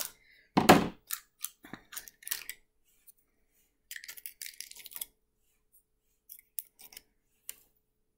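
Scissors snipping and a small plastic slime tub being cut and pried open: a loud knock about half a second in, then a run of sharp clicks, and a scratchy rustle of plastic around four seconds in, with a few more clicks near the end.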